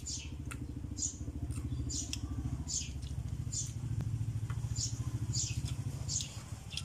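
A small bird giving short falling chirps over and over, about one every second, over the steady low rumble of an engine running.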